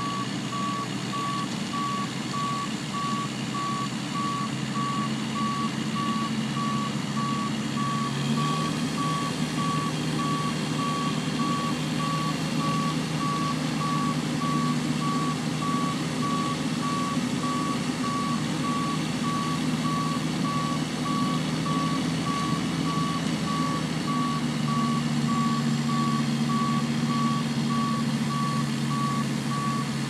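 Concrete mixer truck's reversing beeper sounding steadily over its diesel engine, which rises in pitch about eight seconds in and holds there. The truck is in reverse, working to back out of the soft ground it is stuck in.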